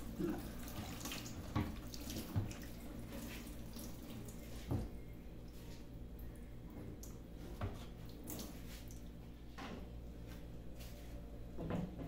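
Kitchen tap running into a stainless steel sink as a glass refrigerator shelf is rinsed, with a few light knocks. The water sound dies down about halfway through.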